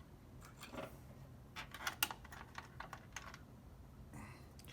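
Scattered light clicks and taps of a screwdriver and small screws against a PS4 Slim's metal frame as the screws are put back in.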